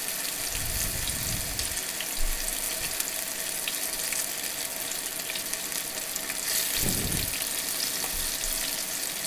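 Batter-coated paneer cubes deep-frying in hot oil over a high flame: a steady sizzle of bubbling oil.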